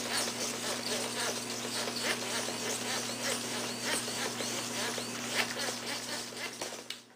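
Futaba hobby servos of a Delrin robot arm whirring in rapid short bursts as the arm jerks and scrapes about on carpet, over a steady low electrical hum. The sound cuts off abruptly at the end.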